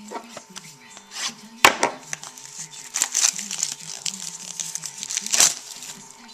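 Plastic card-pack wrapper being handled and crinkled in the hands, with sharp knocks about a second and a half in and again near the end, over faint background music.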